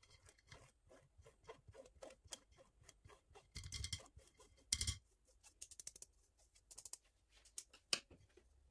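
A small spatula scraping and pushing icing sugar through a stainless steel mesh sieve over a ceramic bowl: a quick, irregular run of short scratchy strokes, with a few louder knocks and clatters about four, five and eight seconds in.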